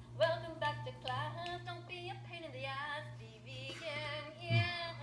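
A woman singing, played back through a tablet's small speaker, her voice wavering in pitch; a steady low hum runs underneath.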